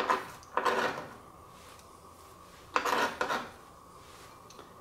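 A kitchen knife blade scraping minced celery across a plastic cutting board, in a few short scrapes, the last about three seconds in.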